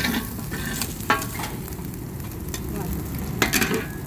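Noodles and beef stir-frying in a hot wok with a steady sizzle, while a metal spatula clanks and scrapes against the pan a few times: once at the start, once about a second in, and in a quick cluster near the end.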